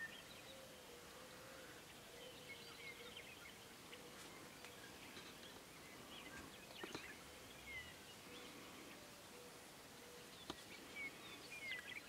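Very quiet open-field ambience with faint, scattered chirps of distant small birds and a couple of soft clicks.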